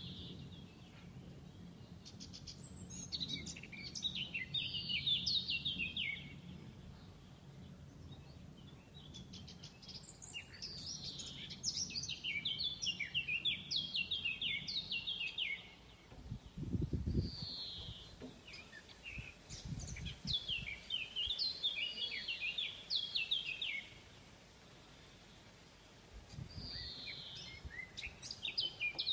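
A songbird singing the same quick descending trilled phrase, a few seconds long, over and over with short pauses between. There is a faint low rumble, with two brief low swells about midway.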